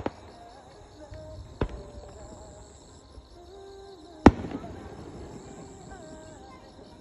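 Aerial firework shells bursting: a sharp bang about one and a half seconds in, then a louder boom a little after four seconds in as a large round burst opens.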